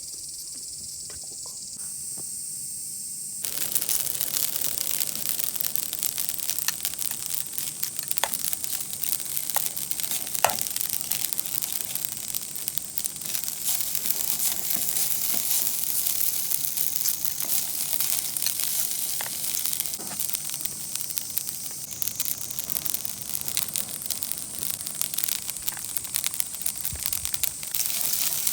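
Steady sizzling crackle made of many small pops, setting in about three seconds in after a softer hiss.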